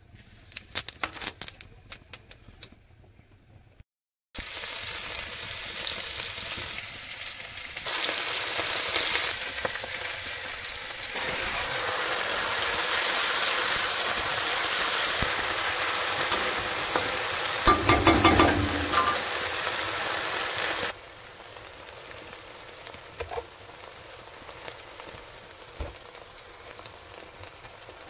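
Masala and green chillies frying in oil in a metal karahi: a steady sizzle and crackle. A few sharp strokes of a spatula stirring against the pan come about 18 seconds in. After about 21 seconds the sizzle drops suddenly to a quieter level.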